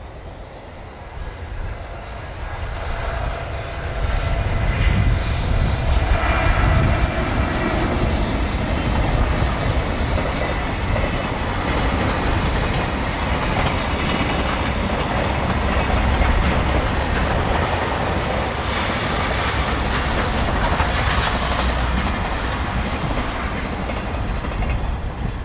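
JR Freight EH500 electric locomotive hauling a long container freight train past at speed. The sound builds over the first few seconds as it approaches, then holds as a steady heavy rumble and clatter of wheels on rails while the container wagons go by, and begins to fade near the end.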